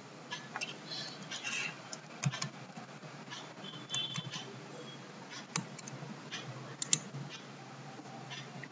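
Faint, irregular computer keyboard and mouse clicks, a few sharp taps scattered over a low background hum.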